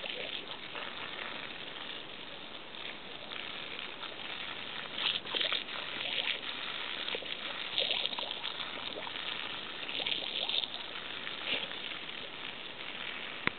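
Water spraying from a garden hose in a steady hiss, with irregular louder splashes as a spaniel plays in the spray.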